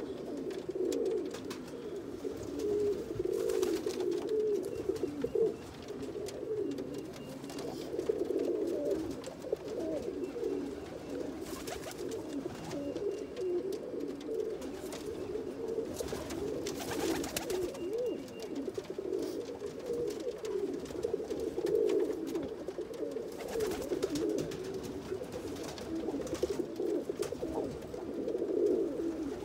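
Several black tippler pigeons cooing continuously, their low calls overlapping without a break.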